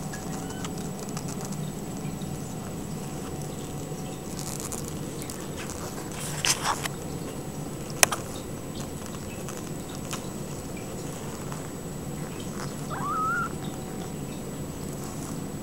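Ragdoll kittens scuffling on a blanket: soft pattering and small clicks, a few sharp knocks around the middle, and one short rising kitten mew near the end, over a steady low hum.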